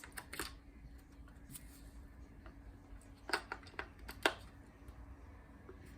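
A few small, sharp plastic clicks and taps, a couple near the start and a handful more about three to four seconds in: AA batteries being fitted into the battery compartment of an electric rotating butterfly cat toy.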